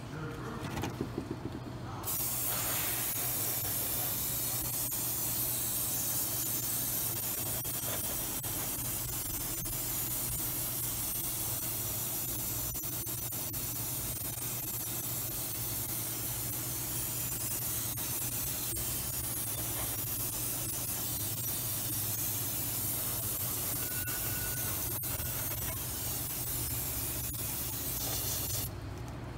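Aerosol spray can hissing in one long continuous spray onto a metal differential cover. The spray starts about two seconds in and stops just before the end.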